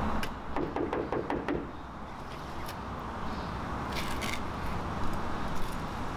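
Knuckles knocking on a large street door: a quick run of knocks in the first second and a half, over a steady low street hum.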